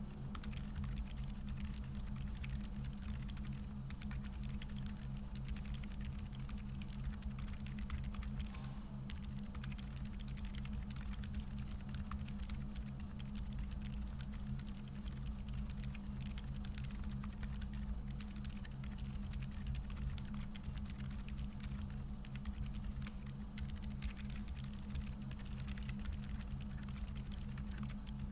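Continuous typing on a KBDFans Odin v2 full-size mechanical keyboard with lubed Boba U4 silent tactile switches on a polycarbonate plate with case foam, under Cherry-profile dye-sub keycaps: a quiet, muted patter of keystrokes. A steady low hum runs underneath.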